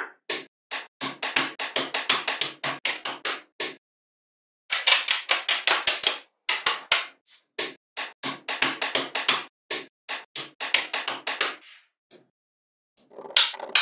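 Small magnetic balls clicking sharply as they snap together and are pressed into strips and panels. The clicks come in quick runs, with short silences about four seconds in and again near the end.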